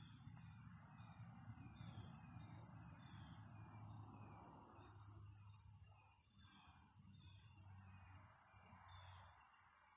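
Faint insects calling in a field: a steady high-pitched buzz that pulses in places, with short repeated chirps, over a low rumble.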